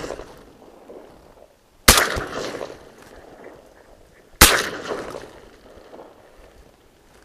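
Two shotgun shots about two and a half seconds apart, each followed by an echo that dies away over about a second. The tail of an earlier shot fades at the start.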